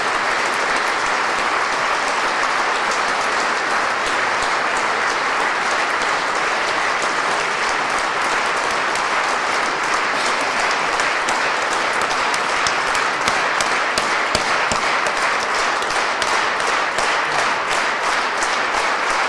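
Concert audience applauding steadily; from about halfway the clapping turns more even and rhythmic.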